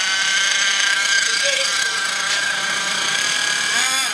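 Small combustion engine of an RC buggy running steadily at a constant high pitch.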